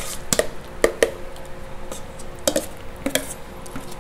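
A utensil scraping and tapping against a stainless steel mixing bowl as thick eggplant purée is scooped out onto a plate, with several irregular sharp taps.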